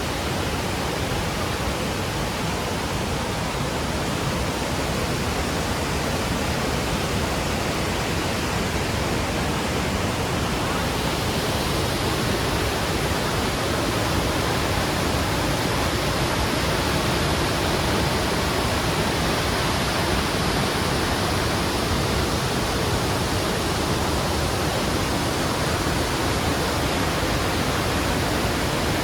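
Water of the Lechfall, a waterfall on the Lech river, rushing steadily without a break; the sound turns a little brighter and louder about eleven seconds in.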